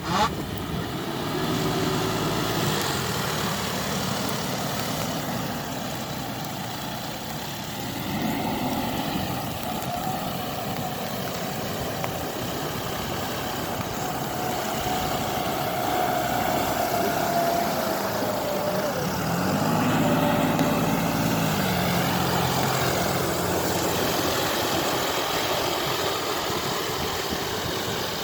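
John Deere 5405 tractor's diesel engine running under load and revving up in several surges, with a thin whine that holds for several seconds in the middle.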